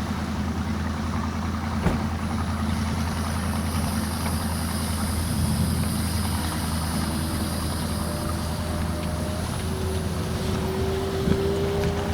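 1991 Evinrude 30 hp two-stroke outboard motor running steadily, its ignition timing freshly retarded per an Evinrude service bulletin meant to cure a miss just above idle.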